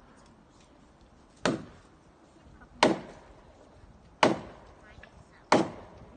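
Axe chopping into a standing tree trunk: four heavy, evenly paced blows about a second and a half apart, each a sharp crack into the wood with a short ring-out.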